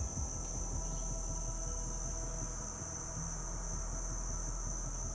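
Steady, high-pitched chorus of insects chirring in the woods.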